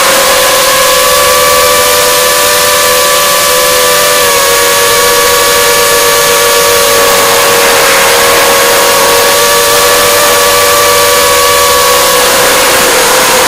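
5-inch FPV racing quadcopter's brushless motors (Racerstar 2403 2300KV) and red triple-blade propellers whining at a fairly steady pitch in flight, with rushing wind hiss, as heard by the camera mounted on the craft.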